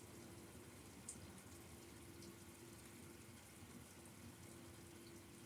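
Near silence: faint steady room hiss with a low hum, and one faint tick about a second in.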